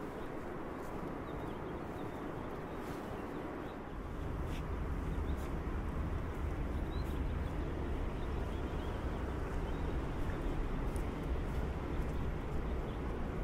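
Outdoor walking ambience: a steady hiss of distant city noise under slow footsteps on a wet paved walkway, with a few faint bird chirps. A low rumble sets in about four seconds in and carries on.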